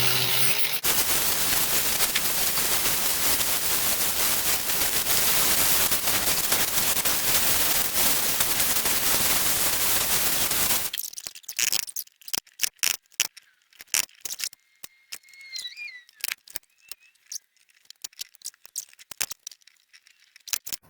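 Grinder cleaning up the metal of an old cast bench vise, a loud, steady grinding hiss that stops abruptly about eleven seconds in. After it comes a scattering of sharp clicks and knocks, like metal parts being handled.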